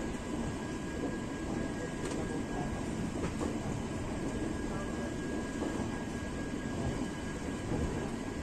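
Passenger train rolling slowly, heard from an open coach door: a steady rumble of the coaches on the track, with a thin steady whine above it and a few faint clicks.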